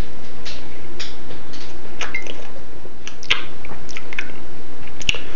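A man drinking from a bottle: sips and swallows with short wet mouth clicks and smacks.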